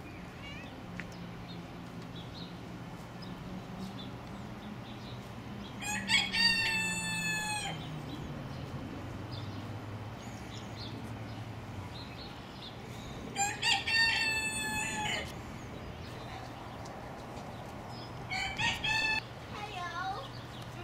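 A rooster crowing three times, each a long call of about one and a half to two seconds, the last one shorter, over a low steady background hum.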